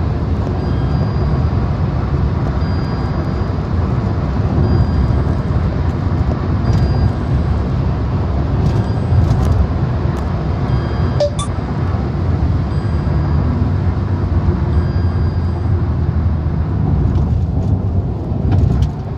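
Steady road and engine noise heard inside a car's cabin at highway speed, around 130 km/h in sixth gear, with a faint high beep repeating about every two seconds. About seventeen seconds in, the higher hiss drops away as the car slows.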